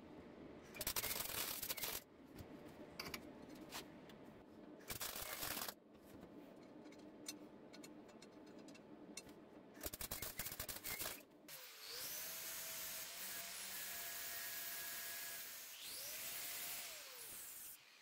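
Three short bursts of MIG welding arc crackle, tack welds lasting about a second each. About twelve seconds in, an angle grinder starts and runs steadily, its motor whine dipping and recovering once near the end.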